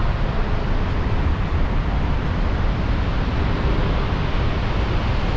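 Steady roar of Niagara Falls, a constant rushing of falling water, mixed with wind rumbling on the microphone.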